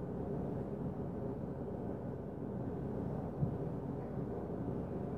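A muffled thump through the ceiling from the apartment above, about three seconds in, like a heavy footstep, over a steady low hum.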